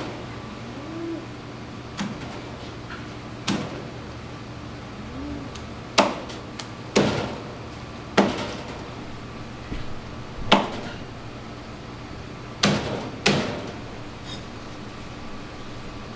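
Heavy kitchen knife chopping through a yellowtail's head and bones, each blow knocking onto a plastic cutting board. The sharp chops come irregularly, about nine of them, one to two seconds apart, two in quick succession a little past the middle.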